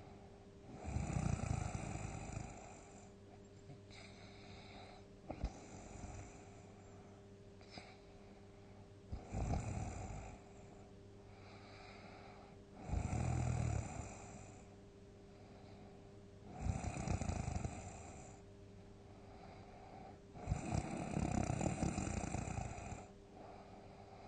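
A sleeping person snoring heavily: five loud snores about every four seconds, each one to two seconds long, with softer breaths between them. A faint steady hum runs underneath.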